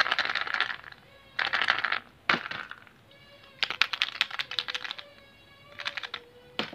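Foil-wrapped plastic surprise eggs handled by hand: short bursts of crinkling foil and clicking plastic, about five separate handfuls, with a sharp single click near the end.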